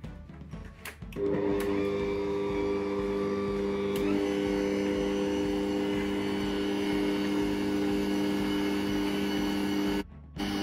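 A few clicks as the Bosch stand mixer is locked together, then its motor starts about a second in and runs with a steady hum. The dough hook kneads flour and liquids into a yeast dough. The sound drops out for a moment near the end.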